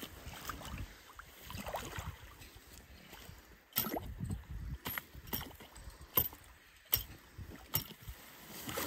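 Water sloshing and splashing, with about half a dozen sharp, irregular knocks and clinks in the second half.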